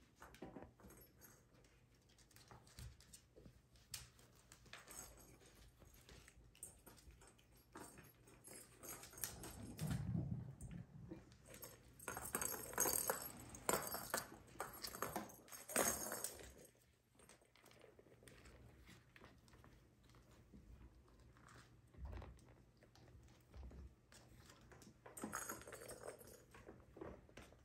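Kittens playing with plastic ball-track toys and batting at them: scattered light clicks and rattles, busiest for a few seconds in the middle.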